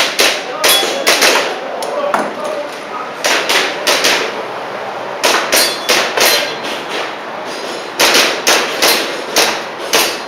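Airsoft pistol shots, sharp clacks fired in quick strings of three to five, with pauses of a second or two between strings.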